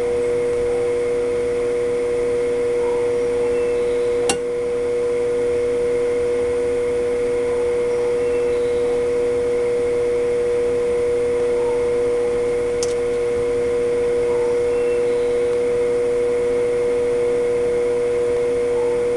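Steady electric hum of an egg incubator's fan, one strong held tone with a few fainter tones around it, broken by two sharp clicks about four and thirteen seconds in.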